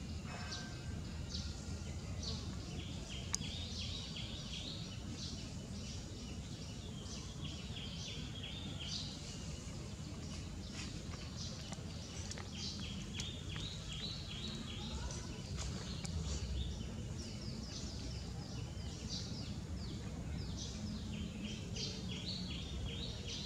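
Outdoor background noise with a steady low rumble, over which come several bouts of rapid, high-pitched chirping, each a quick run of short repeated notes lasting a few seconds.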